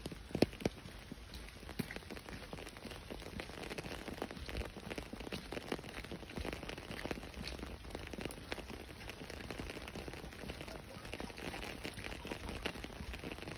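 Rain falling steadily on a wet street, with scattered sharp taps of drops. A few of the taps are louder in the first couple of seconds.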